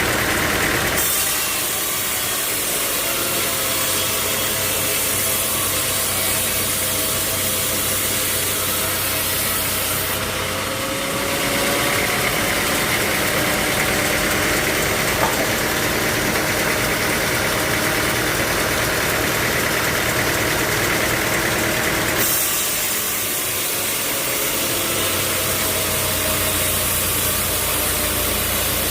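Sawmill machinery running steadily, a noisy hum with a faint wavering whine. The sound changes abruptly three times: about a second in, near the middle, and about three quarters of the way through.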